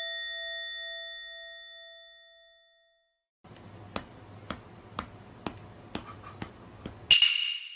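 A bell-like chime rings once and fades away over a couple of seconds, then after a short silence a faint ticking comes in, about two ticks a second, and a short loud hiss cuts in near the end.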